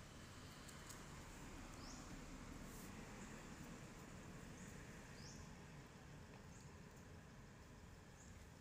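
Near silence: faint outdoor ambience with a few short, high, rising chirps every second or two.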